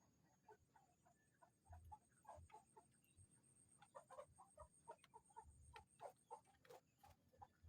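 Faint, soft clucking of chickens, many short irregular notes, with a few sharp clicks or taps near the end.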